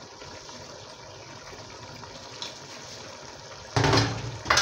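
A pot of pepper stew simmering on the stove with a steady hiss. About three and a half seconds in, loud knocks and handling noise cut in over it.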